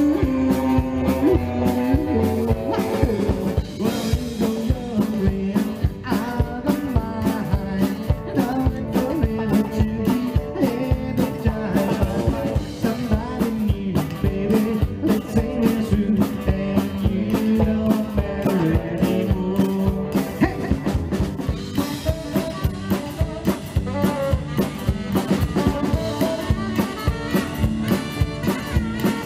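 Live rock and roll band playing an instrumental break: electric guitar over upright bass and a steady drum kit beat.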